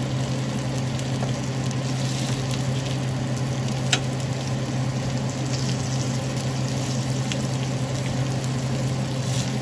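Steak strips, onion and a jalapeño sizzling steadily in a ridged cast-iron grill pan, with a fork clicking against the pan as the meat is turned, sharpest once about four seconds in. A steady low hum runs underneath.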